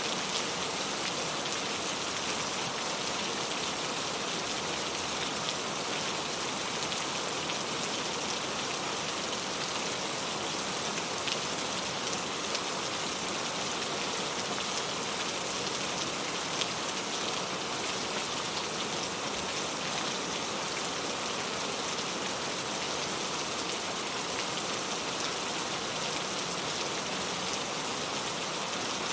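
Steady rain falling and pattering on surfaces, a dense even hiss with scattered faint drop ticks.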